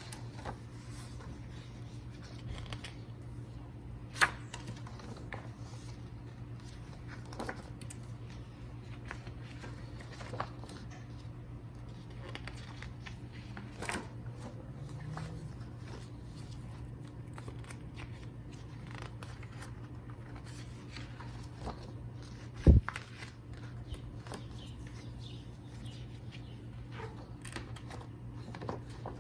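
Light handling of paper and packaging: scattered soft clicks and rustles as a photobook is leafed through, with a sharper click about four seconds in and one dull thump about three-quarters of the way through, over a steady low hum.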